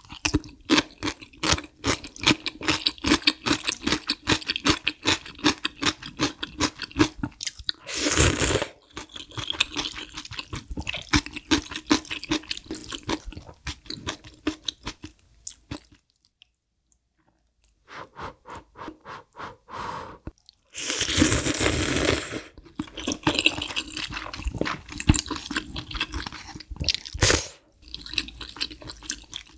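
Close-miked eating: rapid crunchy chewing of pickled yellow radish, with loud slurps about eight seconds in and again around twenty-one seconds in as glass noodles from spicy malatang soup are sucked up. A short slurp of broth from a spoon comes near the end.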